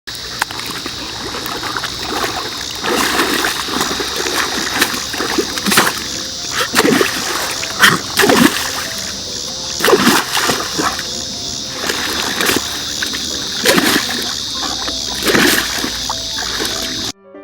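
Boxer dog sneezing repeatedly with its nose in wet mud, each sneeze a sharp burst with a splatter of muddy water. There are about eight sneezes, one to two seconds apart.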